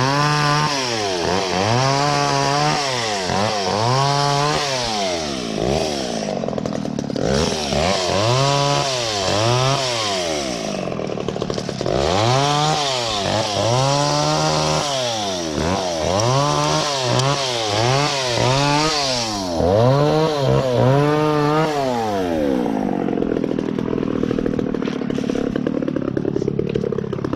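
Two-stroke chainsaw revved up and down again and again, about one swell a second, while trimming dead branches. About three quarters of the way through it drops back to a steady idle.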